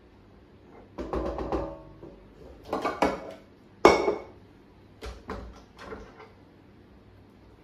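Stainless steel stand-mixer bowl clanking and ringing as it is twisted off the mixer base and set down on a stone countertop, with the loudest sharp knock about halfway through. Then lighter clicks as the flat beater is worked off the mixer head.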